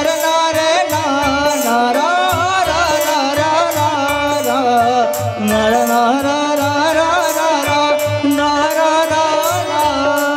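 Live Hindu devotional bhajan music: tabla keeping a steady beat under keyboard and a winding, ornamented melody line.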